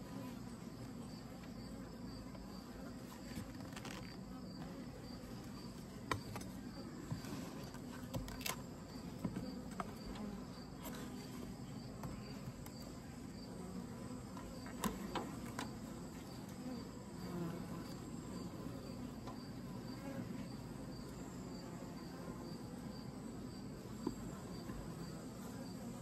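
Honeybees humming steadily from an open hive, with scattered sharp clicks and cracks as a hive tool pries heavily propolized wooden frames loose. A faint insect chirp pulses evenly in the background.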